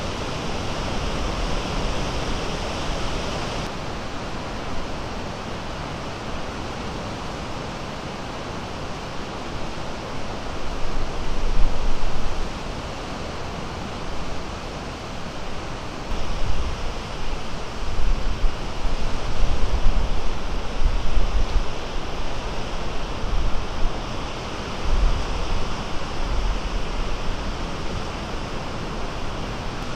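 Small lake waves breaking, a steady wash of surf. Wind gusts rumble on the microphone at times, mostly in the second half.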